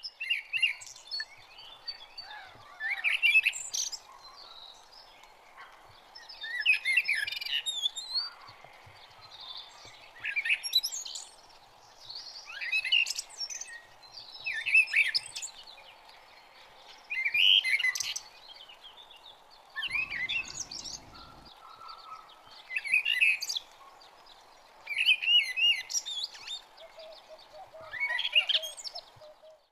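A songbird singing short, quick warbling phrases, repeated roughly every two seconds.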